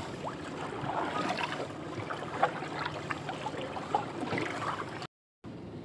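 Water splashing and lapping around a small boat being paddled with a wooden paddle, with irregular short splashes of the strokes. The sound cuts out briefly near the end.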